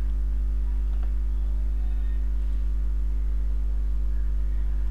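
Steady low electrical hum with a stack of even overtones, unchanging throughout; no other sound stands out.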